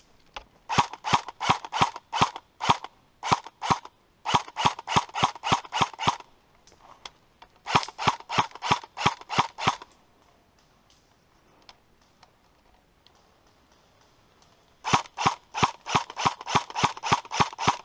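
M4-style airsoft electric rifle firing rapid single shots, about four to five snapping shots a second, in four volleys, with a longer pause before the last.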